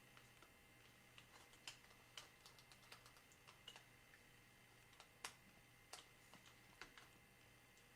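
Faint, irregular small clicks and taps of a screwdriver and fingers working on the parts inside an opened MacBook Air, over a faint steady low hum.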